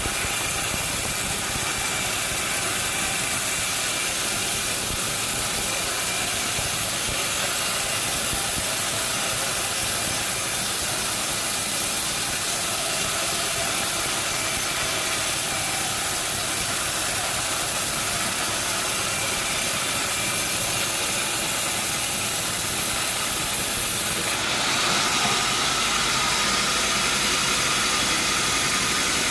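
Sawmill machinery running steadily with a loud, even hiss of sawing. A little before the end the sound shifts and gets slightly louder.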